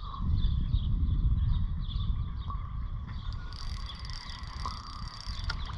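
Spinning reel being cranked to wind in a small hooked snapper, with repeated light mechanical ticks over a steady low rumble.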